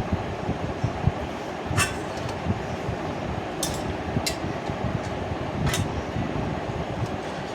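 A metal spatula clinks and scrapes against a kadai, four sharp clinks spread through, as water is stirred into the masala stuck to its sides. A steady low rumble runs underneath.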